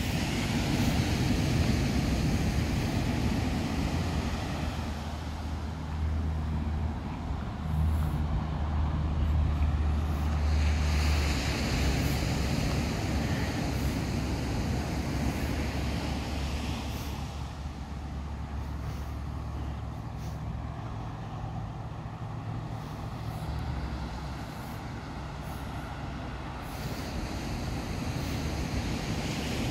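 Ocean surf washing onto a sandy beach, under the low rumble of passing road traffic. The rumble swells between about six and seventeen seconds in as a heavy vehicle goes by.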